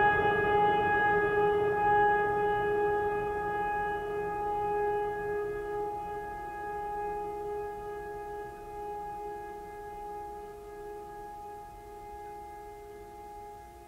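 A single struck bell-like tone, hit just before, ringing out with several steady overtones and fading slowly over many seconds.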